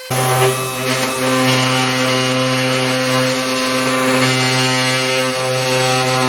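3018 benchtop CNC router spindle cutting a pocket in a test workpiece: a steady machine whine with a low hum and a rough cutting noise, starting abruptly just after the start.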